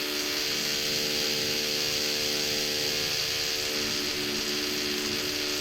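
Steady machine hum at a constant pitch, from a running motor.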